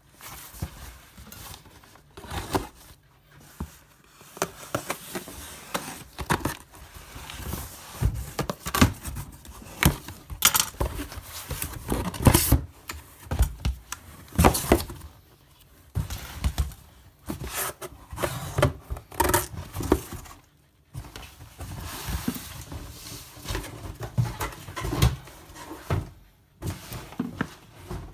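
Hands unpacking a cardboard shipping box and handling plastic protein-powder tubs: irregular knocks, clicks and scrapes of cardboard and plastic.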